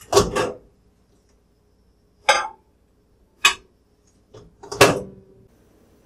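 Glass dish and countertop microwave oven handled: four separate clunks and clicks, as the dish is set in and taken out and the door shuts and opens.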